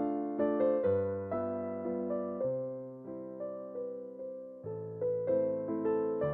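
Gentle background music played on an electric piano: a slow melody of struck notes over a bass line, each note fading after it sounds.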